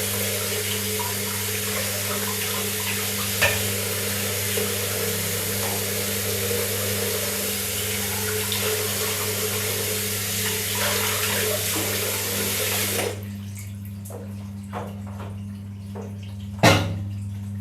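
Tap water running steadily into a sink, then shut off suddenly about thirteen seconds in. A few small knocks follow, with one louder clunk near the end, over a steady low hum.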